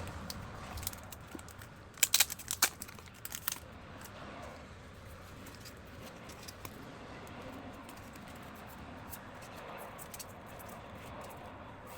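Calendar packaging being handled: a quick burst of sharp crinkling clicks about two seconds in, then soft, faint rustling.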